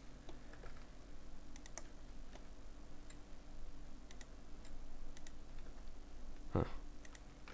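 Faint, scattered clicks of a computer mouse and keyboard over a steady low hum, with one short, louder thump about six and a half seconds in.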